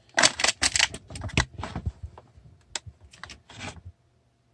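Clattering, knocking and scraping of small hard objects being handled and rummaged through, a quick irregular run of clicks that stops abruptly about four seconds in.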